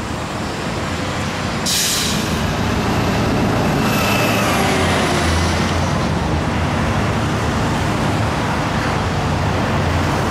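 City street traffic with a large vehicle's engine rumbling, stronger after the first few seconds, and a short sharp hiss about two seconds in.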